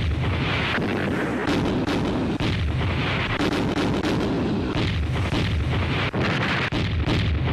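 Black-powder cannons firing in a continuous barrage, booms following one another closely and overlapping, with no pause.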